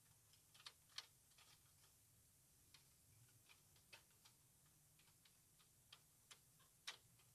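Faint, irregular clicks and light taps of thin stainless-steel panels being slotted together by hand while assembling a flat-pack Skotti portable grill, with two sharper clicks about a second in and near the end.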